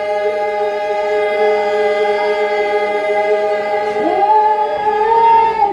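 Choir singing a long held chord in several parts. About four seconds in, some voices slide up to a higher note and hold it.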